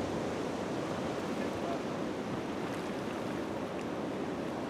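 Fast-flowing river current rushing steadily, an even, unbroken water noise.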